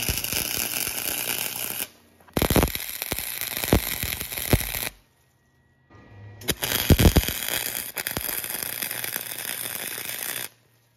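Wire-feed welder arc crackling and sputtering as it tack-welds steel plate, in three bursts of about two, two and a half, and four and a half seconds with short pauses between them.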